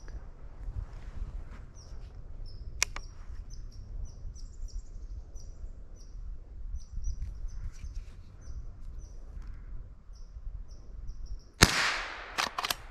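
Rapid, faint high bird chirps repeat through the woods. About a second before the end comes a single sharp shot from a Henry H001 .22 rimfire lever-action rifle, followed shortly by a couple of clicks.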